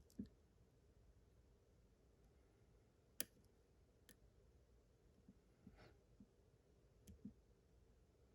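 Scattered faint clicks and soft taps of a hook pick and tension wrench working the pins of a pin-tumbler challenge lock, with one sharper click about three seconds in.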